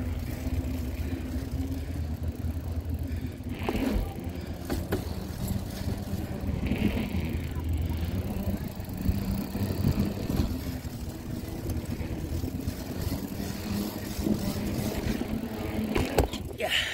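Wheels rolling over concrete: a steady low rumble, with a few sharp knocks along the way.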